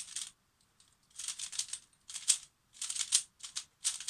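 Plastic Pyraminx puzzle being turned by hand in quick bursts of clicking rattle, six or seven flurries with short pauses between. It is freshly lubricated with a couple of drops of Citrea lubricant, and the turning is being tried for smoothness.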